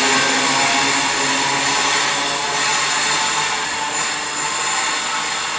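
A steady, loud hiss from a standing steam locomotive letting off steam, as a Class 390 Pendolino electric train rolls past. A faint low hum fades out in the first second.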